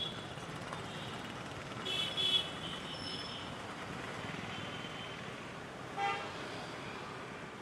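Street traffic driving past, with short vehicle horn toots: a pair about two seconds in and a single one near six seconds.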